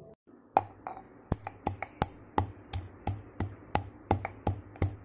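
Marble pestle pounding whole black peppercorns, cumin and coriander seeds in a marble mortar: a steady run of sharp knocks, about three a second, starting about half a second in.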